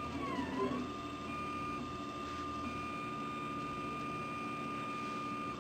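RepRap 3D printer's stepper motors whining as they drive the print head through the first layer on a dry run with no extrusion. In the first second the pitch swoops down and back up as the head changes speed, then it holds one steady tone.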